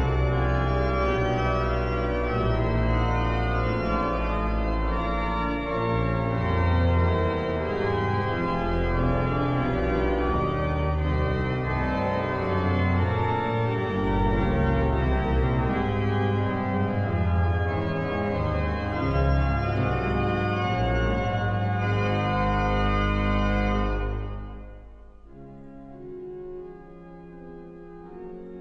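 Newly refurbished sanctuary pipe organ playing loudly, many sustained notes at once over deep bass notes. About four seconds before the end the sound falls away to a much quieter, softer passage.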